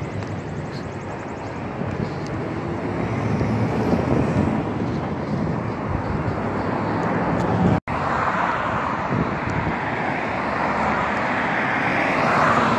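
Steady outdoor traffic noise from passing vehicles, with some wind on the microphone; the noise swells toward the end as a vehicle goes by, and it cuts out for an instant about eight seconds in.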